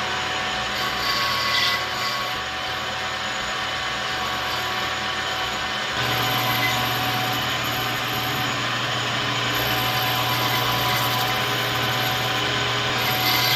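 Metal lathe running steadily, turning down a piece of aluminum stock, a constant machine whine over cutting noise that steps up slightly about six seconds in.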